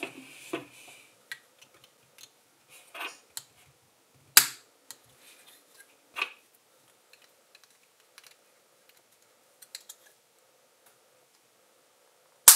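LEGO plastic bricks being pressed and clicked together by hand, with small taps and handling of the pieces between. A sharp snap comes about four seconds in and another at the very end, with only faint ticks for a few seconds in between.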